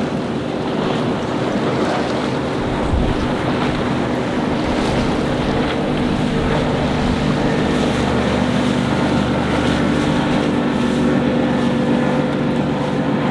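Motorboat engines running steadily over the wash of waves, with wind buffeting the microphone. The engine tone grows stronger about two-thirds of the way through.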